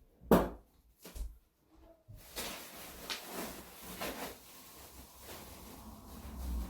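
Handling noises: a sharp knock, a softer knock about a second later, then lighter knocks and rustling over a faint steady hum.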